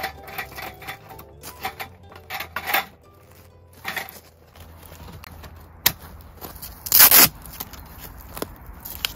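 Aluminium slats and frame of a folding roll-top camping table clicking and rattling as it is handled and set up, with a few sharp knocks. About seven seconds in comes the loudest sound, a short rip that fits a velcro strap on the table leg being pulled open.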